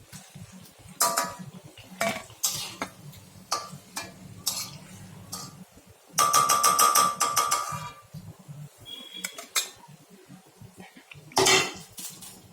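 Metal utensils clinking and scraping against pots and pans: a string of sharp clinks about a second apart, a longer ringing metallic scrape around six to eight seconds in, and another loud clink near the end.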